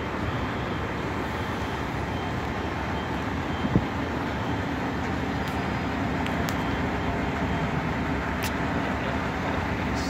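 Steady rumble of idling fire-truck diesel engines and street traffic, with one brief knock a little under four seconds in.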